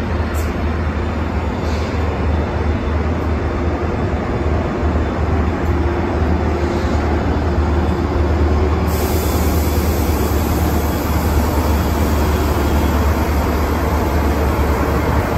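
Diesel locomotive of a passenger train running steadily at the platform, a deep rumble with a broad noisy wash above it. A higher hiss joins about nine seconds in.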